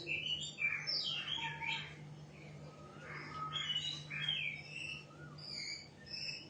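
Caged shama singing a fast, varied string of clear whistled notes that slide up and down, phrase after phrase.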